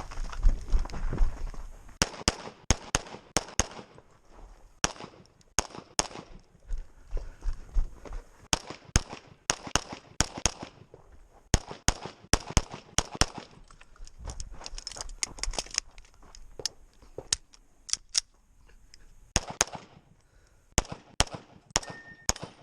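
A .40 S&W 2011-pattern pistol fired in fast strings of shots, often in quick pairs, with short pauses between strings, as in a timed USPSA stage run.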